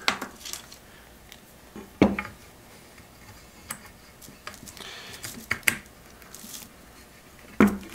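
Scattered light clicks and knocks of small wooden caps and metal clamp parts being handled and set down on a workbench while a wooden cap is fitted onto the end of a clamp's threaded rod. There is a sharper knock about two seconds in and a cluster of knocks near the end.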